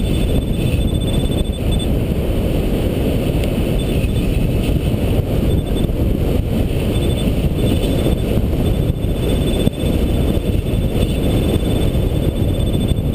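Wind buffeting the microphone of a camera on a hang glider in flight, a loud steady rush. Over it a variometer sounds in runs of rapid short high beeps with pauses between, the beeping that signals the glider climbing in lift.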